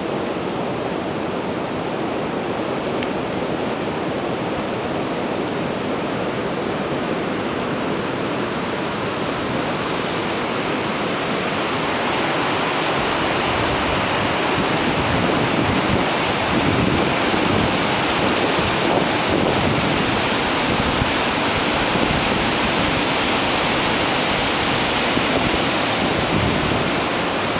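Ocean surf breaking on the beach with wind buffeting the microphone, a steady rushing noise that grows louder and gustier about halfway through.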